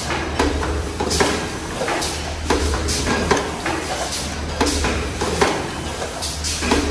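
Automatic aluminium foil container press running: repeated sharp metal clanks about once a second over a steady low machine hum.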